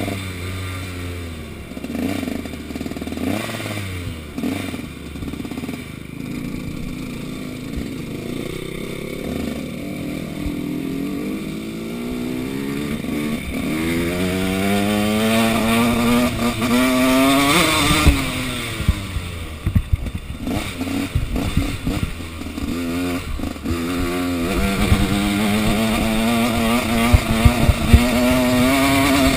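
Motocross bike engine heard from on the bike, running at low revs. About halfway through it revs up in a steady rising climb for a few seconds, then falls away. Knocks and rattles follow as it rolls over rough ground, and near the end it settles at a steadier, higher engine note.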